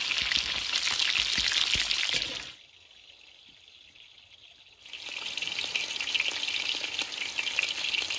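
Potatoes, onions and unpeeled garlic deep-frying in hot rendered fat in a large cauldron, a dense sizzling hiss. It breaks off for about two seconds near the middle, then returns a little softer.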